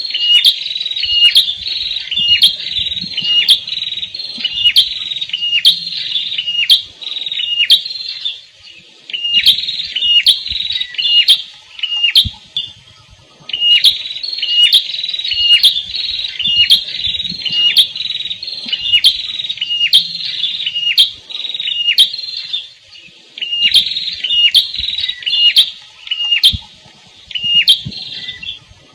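A red-headed prenjak, a small songbird, calling in a fast string of sharp, repeated chirps, about two a second. The bouts are broken by brief pauses three times.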